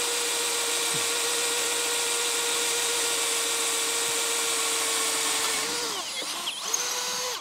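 Bosch GSB 185-LI 18 V cordless drill running at a steady pitch as a metal twist bit bores dry into a metal bar, without cutting oil. About six seconds in the motor slows and wavers, spins up again briefly, then stops suddenly.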